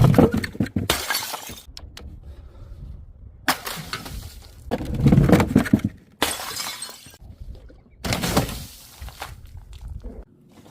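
Glass bottles being smashed and crushed, in about five separate bursts of shattering and crunching with short pauses between.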